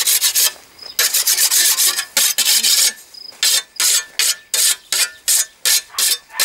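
Scythe blade being sharpened by hand with a whetstone: rasping strokes of stone on steel, a quick flurry at first, then slower, evenly spaced strokes about three a second.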